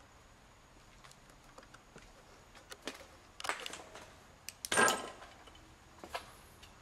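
Footsteps over a debris-strewn floor: scattered light clicks and ticks, with two louder short crunching scrapes about three and a half and five seconds in, the second the loudest.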